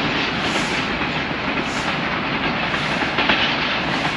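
Train rolling along the rails: a steady rumble of steel wheels on track, with a few sharper clacks of wheels over rail joints near the end.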